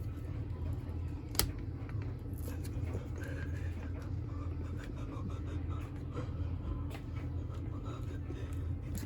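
Light handling noise and one sharp plastic click about a second and a half in, as the tough plastic shell of a Squawkers McCaw toy parrot is pried apart, over a steady low hum.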